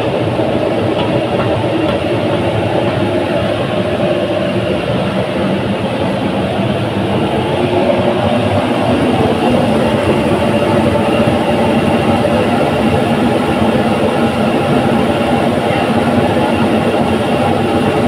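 Aluminium melting furnace running with a steady, loud mechanical noise and a low hum. It grows a little louder about eight seconds in.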